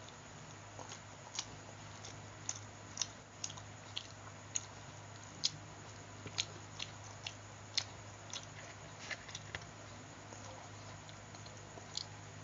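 A person chewing and biting food close to the microphone: soft, irregular mouth clicks and smacks, a couple of seconds apart at most, over a faint steady hum.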